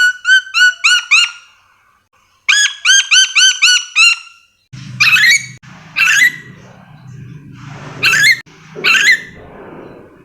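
Nuri dora parrot calling: two quick runs of six or seven short, ringing repeated notes, then four separate harsh screeching calls about a second apart.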